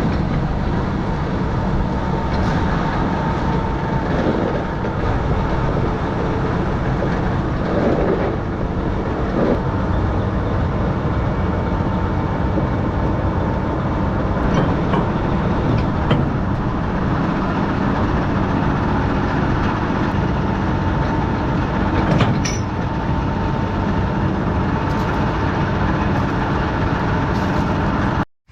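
Tractor engine running steadily, with a faint steady whine above it.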